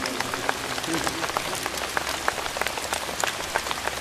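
Steady rain: an even hiss with irregular sharp ticks of drops. A last faint note of music dies away about a second in.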